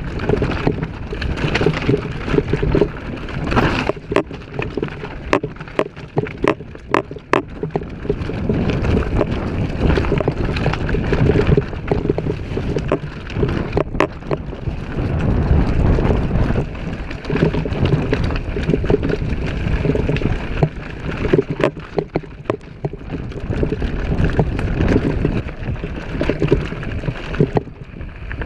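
Mountain bike descending a dirt downhill trail: a loud, continuous rumble of the tyres over dirt, roots and stones, with many sharp clicks and rattles as the bike jolts over bumps.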